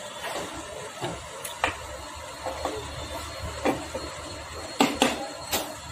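Clutch-side crankcase cover of a Bajaj Pulsar 150 engine being handled and fitted into place: scattered metal clicks and knocks, with a quick cluster of knocks near the end.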